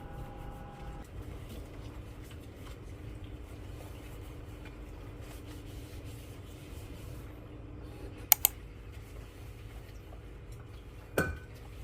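A Cuckoo food waste processor being opened and loaded with food scraps. A faint steady hum runs under two sharp clicks close together about eight seconds in, and a single knock comes near the end.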